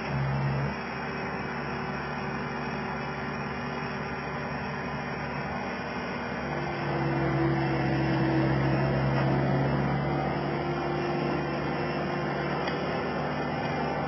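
Skid steer engine running steadily, its note growing stronger and louder about halfway in, as when the machine is throttled up or put under load.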